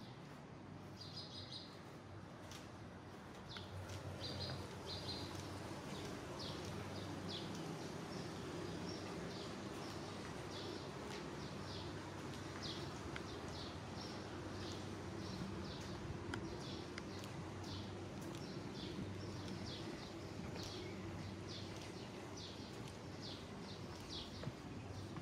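Small birds chirping in short, repeated calls, about one or two a second, over a steady low hum.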